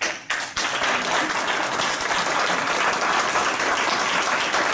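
Audience applauding: a few separate claps at the start, then steady dense clapping within the first second.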